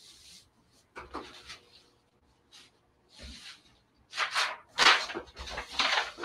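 Rustling and rubbing of materials being handled, in short noisy bursts that grow louder from about four seconds in.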